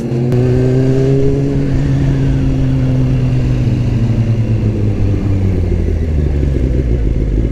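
Motorcycle engine running while ridden, its pitch easing slowly down over the first few seconds and then settling into a low steady rumble.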